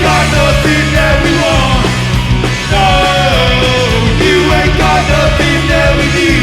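Punk rock band playing live, loud and steady, with regular drum strokes under the guitars.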